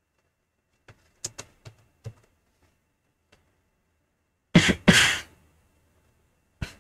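A few computer keyboard clicks, then a man coughing twice into his hand, followed by one short sharp sound near the end.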